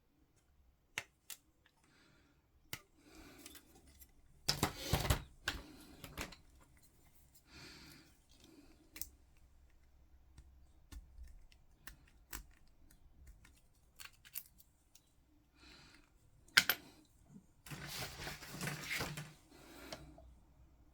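Plastic miniature parts being clipped from their sprue and handled: scattered sharp snips and clicks, with two longer bouts of plastic rustling and scraping, the louder about five seconds in and another near the end.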